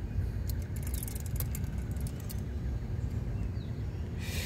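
Light handling noise of a steel tape measure held up in a car's hatch opening: a few faint clicks in the first couple of seconds over a steady low rumble, then a short hiss about four seconds in.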